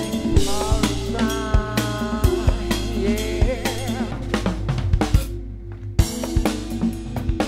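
Jazz-fusion band playing: drum kit with snare, bass drum and cymbals, a steady bass line, and a lead melody with bent, wavering notes. Just after five seconds in, the cymbals and lead drop out for a moment and a drum hit brings the band back in.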